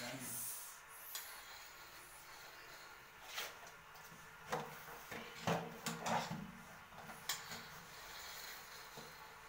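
A few scattered knocks and scrapes of hard objects being shifted and prodded, with quiet stretches between them.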